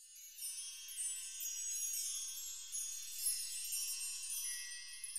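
Soft, high, shimmering chime tones, many ringing and overlapping at once, fading in at the start.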